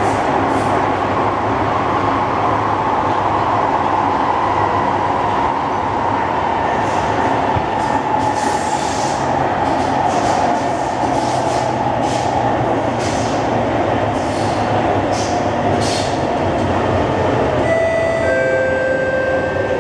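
SMRT C151 metro train running through a tunnel, heard from inside the carriage: a steady rumble of wheels and motors with a whine that slowly falls in pitch as the train slows. A two-note chime sounds near the end.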